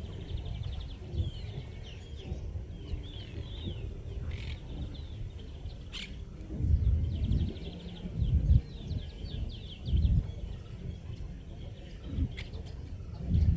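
Birds chirping and trilling in quick runs of short notes, on and off throughout, over irregular low rumbles that swell and fade several times.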